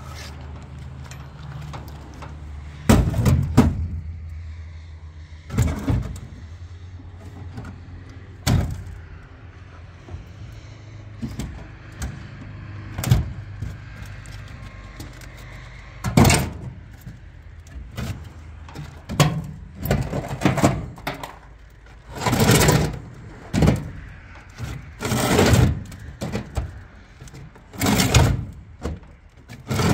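Hollow concrete blocks being picked up and set down against each other while they are loaded onto a truck bed: a dozen or so heavy knocks and scraping thuds at irregular intervals, coming faster in the second half.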